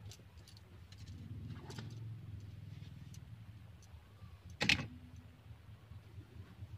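Light clicks and handling noise from dusting a car's dashboard and console inside the cabin, over a low steady hum, with one sharp knock a little under five seconds in.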